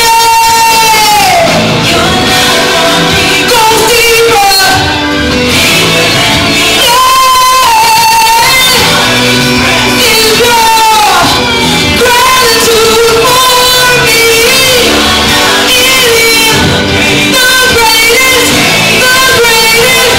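Church worship music: loud singing, with sustained, bending melodic lines, over steady instrumental accompaniment.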